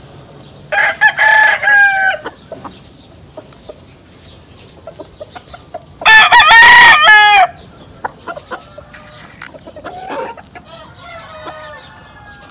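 Gamecock rooster crowing twice, about a second in and again around six seconds, the second crow louder, each about a second and a half long. Fainter clucking and short calls follow near the end.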